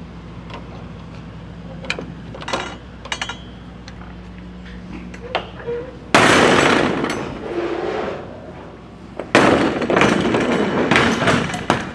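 Rear swing doors of a semi-trailer being unlatched and opened: a few metal clicks and knocks from the lock rods and handles, then two long, loud stretches of metal rattling and banging as the doors are worked open. A steady low engine hum runs underneath.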